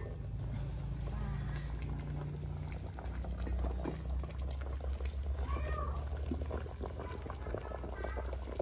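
Water boiling in a pot of corn cobs over an open wood fire, with many small pops and crackles. A few short high-pitched cries come over it, the clearest about five and a half seconds in.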